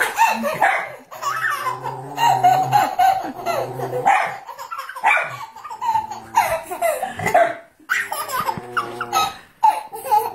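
A baby laughing hard in repeated belly laughs, with adults laughing along.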